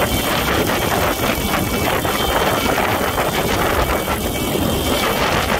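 Motorcycle engine running steadily under way, heard from a moving motorcycle, mixed with road and wind noise.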